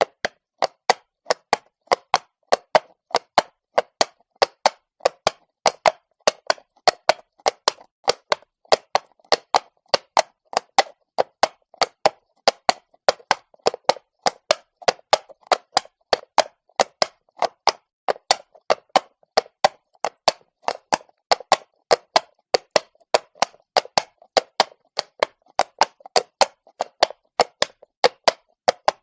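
Horse's hooves clopping on cobblestones at a walk, a steady, even rhythm of sharp clops, about three a second.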